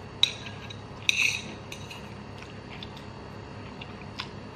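Metal chopsticks clink sharply once against a ceramic bowl while noodles are being eaten. A short slurp follows about a second in, then a few light taps of the chopsticks.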